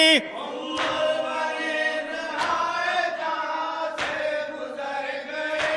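A group of men chanting the refrain of an Urdu noha, a Shia lament, in unison between the lead reciter's lines, with a soft thump about every second and a half.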